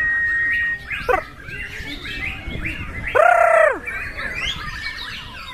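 Murai batu (white-rumped shama) singing a varied song: a long steady whistle ending just under a second in, then quick chirps and slurred notes, with one loud, harsh note with several overtones about three seconds in.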